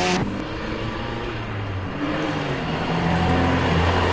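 Opel Manta 400 rally car's engine running hard on a stage, its note changing pitch a couple of times and growing louder as it comes closer.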